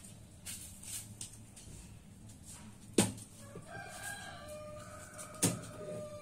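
A rooster crowing once in the background: one long call of about three seconds, starting about halfway through and dipping slightly at the end. Two sharp knocks, the loudest sounds, come about three seconds in and again during the crow.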